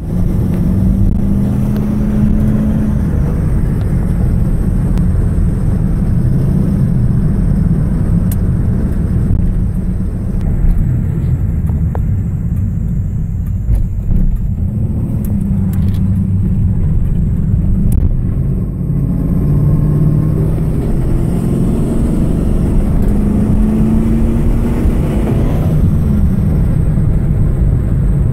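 A 1998 Camaro's LS1 5.7-litre V8 heard from inside the cabin while driving, a loud, steady low rumble whose pitch rises several times as the car pulls away and accelerates.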